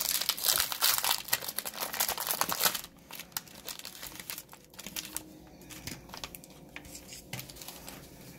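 Plastic wrapping of trading-card packs crinkling and tearing, dense and loud for about three seconds, then only scattered light rustles and clicks.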